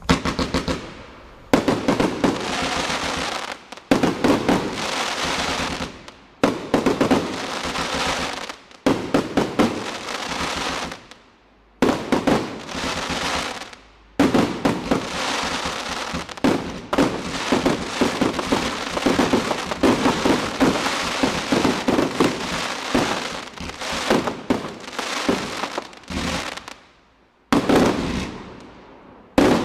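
A 108-shot combination firework cake firing in rapid runs of launches and bursts, with short pauses between volleys about every two to three seconds, then one long unbroken stretch.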